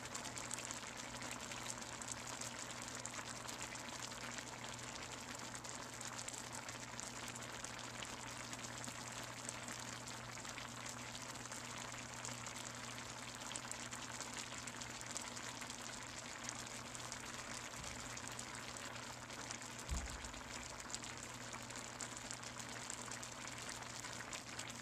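Pot of lentil stew simmering on a stovetop: a steady, faint bubbling of many small pops and ticks, with a brief thump about twenty seconds in.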